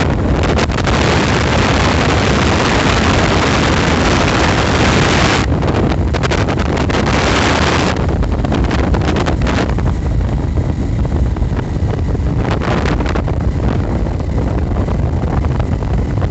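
Loud wind buffeting the microphone: a heavy low rumble with hiss, the hiss easing about eight seconds in while the rumble goes on.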